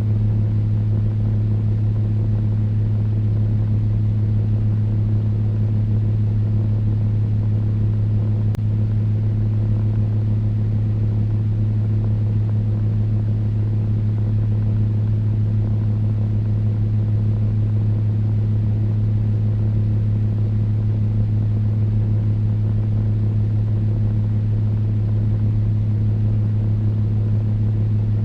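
Electric fan running steadily: a constant low hum under an even rush of air, with no change in speed.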